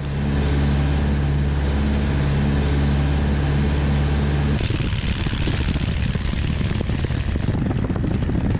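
Single-engine 1940s Taylorcraft light aircraft's engine and propeller running steadily at a constant pitch, heard inside the cabin. About four and a half seconds in the sound changes abruptly to a rushing wind noise with the engine fainter underneath, as heard from a camera mounted out on the wing.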